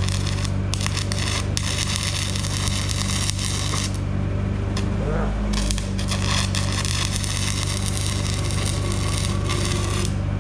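Stick-welding arc crackling on the steel backhoe dipper stick, dropping out briefly a few times as the arc breaks, over a steady low hum.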